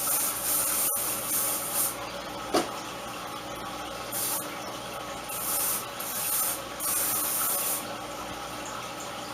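Hairspray sprayed onto freshly waved hair in about six short hissing bursts, setting the waves for hold.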